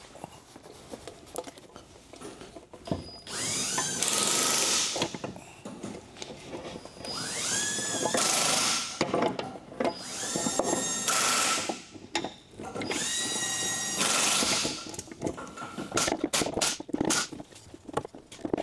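A power drill running in four short bursts of a second or two, each spinning up in pitch and then holding a steady whine. Sharp clicks and clatter of tools on metal follow near the end.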